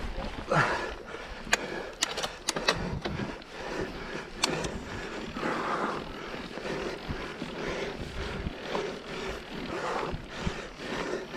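Mountain bike ridden over a dirt trail: steady tyre and rolling noise with irregular sharp clicks and knocks as the bike rattles over bumps.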